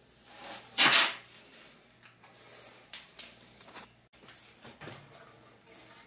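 Crushed gravel stones shifting and scraping as a hand works in them around a PVC pipe, with one louder scrape about a second in and lighter rustling and clicks after.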